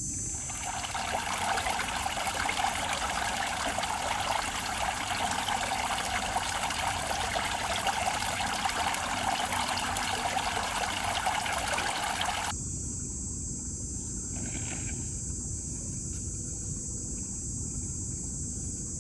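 Water running and trickling, which stops abruptly about twelve seconds in, leaving a steady high-pitched hiss.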